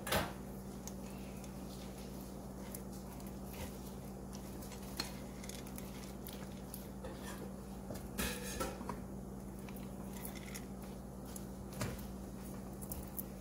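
Silicone spatula stirring white chocolate chips and condensed milk in a glass bowl, with a few soft knocks and scrapes against the glass, the loudest about 8 and 12 seconds in. A steady low hum runs underneath.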